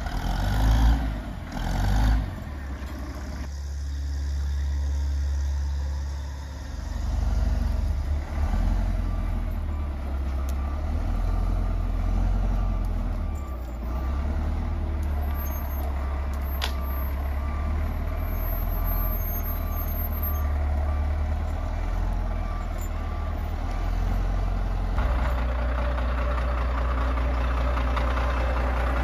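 Diesel engine of an old Caterpillar wheel loader running steadily under work. There are a few clanks in the first couple of seconds, a regular high beeping for about ten seconds in the middle, and the engine grows louder about four seconds before the end.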